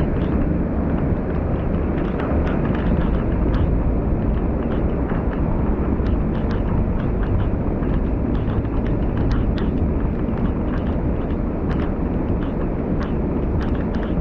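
Car driving through torrential typhoon rain: a steady, heavy low rumble of road, wind and rain noise, with many sharp scattered taps of raindrops striking the car.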